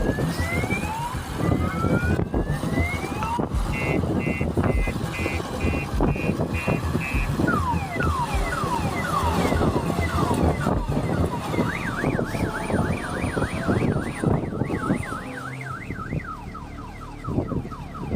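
Electronic alarm siren cycling through its tones: rising whoops, then a run of short rapid beeps, then falling sweeps, and a fast up-and-down warble in the last few seconds. Heavy rumbling and clatter runs underneath.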